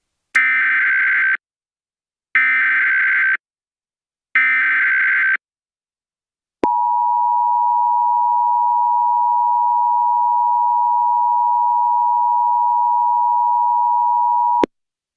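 Emergency Alert System SAME header: three short bursts of warbling digital data tones, each about a second long, followed by the steady two-tone EAS attention signal held for about eight seconds. This is the sequence that opens a new emergency alert message.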